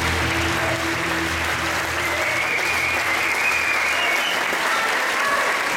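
Audience applauding, with music fading out in the first two seconds.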